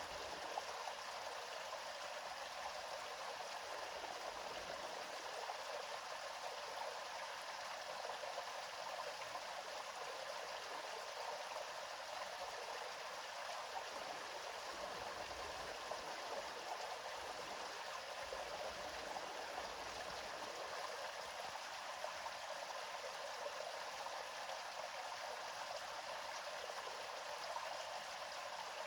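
Gently flowing river water, a steady, even rush without pause.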